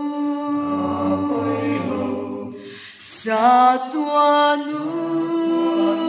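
Mixed men's and women's voices singing a Mizo gospel song a cappella in close harmony. A held chord fades away about halfway through, and after a short breath the voices come back in together on a new phrase.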